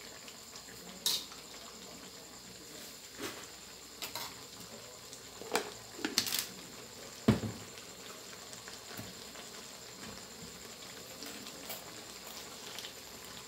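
Spicy catfish curry with Thai eggplant simmering in a wok: a steady faint bubbling hiss with several sharp pops as bubbles burst in the thickening sauce, the loudest about seven seconds in. The little water added is cooking down.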